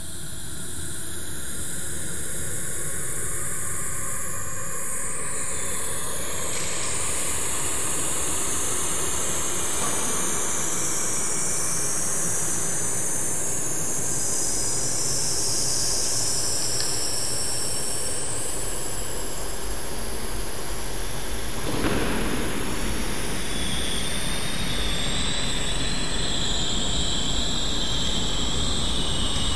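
Steady, dense rumbling noise with a strong high hiss that shifts in pitch, fading in over the first second or two. There is a brief sharp change about 22 seconds in.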